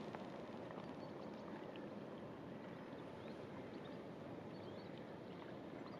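Steady rushing noise of a passing inland cargo barge, its engine and the water churned along its hull, with a few faint short high ticks scattered through it.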